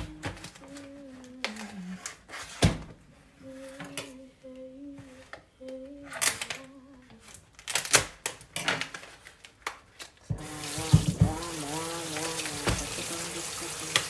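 Water running from a kitchen tap into a stainless steel sink, turned on about ten seconds in and running steadily, with hands rinsing raw shrimp under it. Before that, a few knocks and clicks of things being handled at the counter, with a voice humming a wavering tune throughout.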